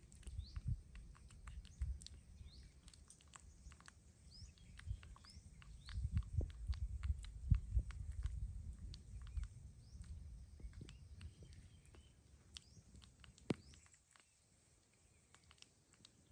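Baby macaque chewing on a banana: many soft, wet mouth clicks. Short rising bird chirps sound in the background, and low rumbling thumps are heaviest in the middle.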